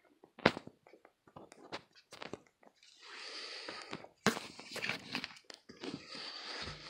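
Handling noise from a handheld phone camera being swung around: scattered clicks and taps, then from about three seconds in a continuous rustling with sharper knocks, like fingers rubbing and shifting over the microphone.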